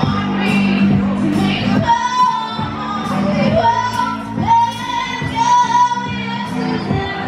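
Live song: a singer accompanied by a strummed acoustic guitar and an electric bass guitar.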